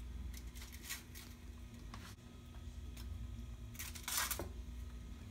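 Metal kitchen tongs clicking and a zip-top plastic bag rustling as sous vide chicken breasts are lifted out of the bag and set down on a foil-lined tray. There are a few short handling noises, with the longest and loudest rustle about four seconds in.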